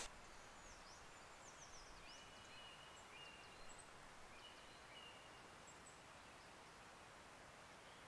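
Faint birdsong in a quiet woodland: thin high whistles, several quick falling slurs and short level notes, mostly in the first half.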